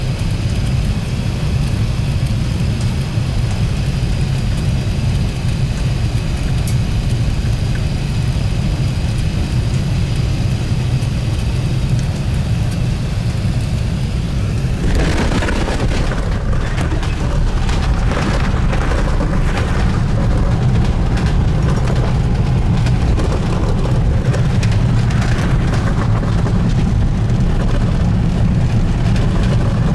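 Airbus A380 cabin noise during landing: a steady low rumble with faint steady whine tones on short final. About halfway through, the airliner touches down, and a louder rushing rumble with rattles and creaks of the cabin fittings takes over as it rolls out on the runway with its spoilers raised.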